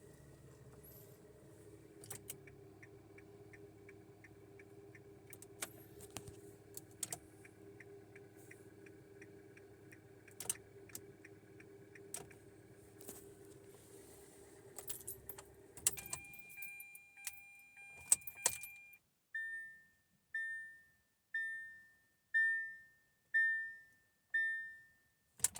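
2017 Hyundai Accent's 1.6-litre four-cylinder idling while the turn-signal flasher ticks steadily, with keys jingling. About sixteen seconds in the engine is switched off, a steady electronic warning tone sounds, and then a row of about six chimes follows, roughly a second apart.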